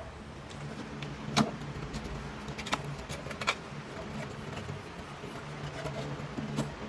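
Cardboard packaging being opened by hand, with the flap pulled open and the inner box slid out. There are a few light knocks and scrapes of cardboard, the sharpest about a second and a half in, over a faint low hum.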